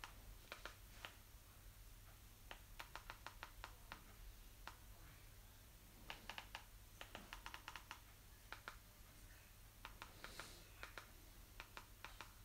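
Faint clicking of a TV box remote control's buttons, pressed in quick runs of several clicks with short pauses between, as the cursor is stepped across an on-screen keyboard and the search text is deleted and retyped.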